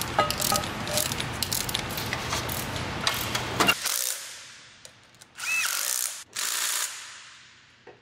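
Cordless power ratchet running down the nuts of an exhaust manifold on a BMW X3 engine. A clicking, whirring run fills the first few seconds. After a pause come two short runs of about a second each.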